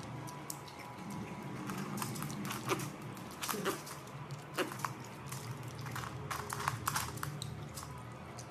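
Piglet scrabbling and snapping at grapes held above it: a string of irregular sharp clicks from its small hooves on a wooden floor and its mouth smacking and biting.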